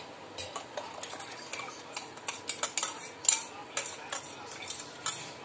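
A metal spoon clinking and scraping against a steel grinder jar as ground mint and green-chilli paste is scraped out into a pot of water: a run of irregular sharp clinks, a few a second, the loudest a little past three seconds in.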